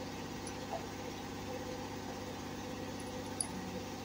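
Steady low hum of a running engine or machine in the background, even throughout, with a couple of faint clicks.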